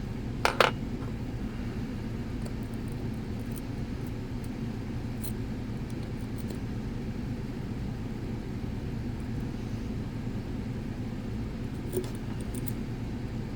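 Faint clicks and ticks of a dimple flag pick and tension tool working the pins of a dimple lock, with one sharper click about half a second in, over a steady low background rumble.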